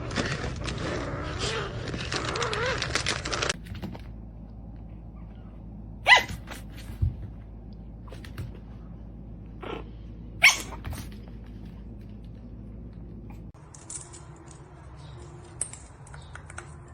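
A dog vocalizing for about three and a half seconds, then a few short, sharp knocks.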